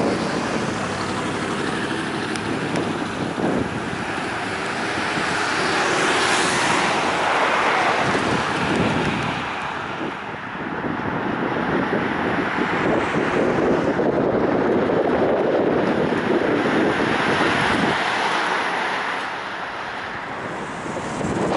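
1959 Cadillac convertible driving by, its engine and tyre noise swelling and fading as it passes, under heavy wind noise on the microphone.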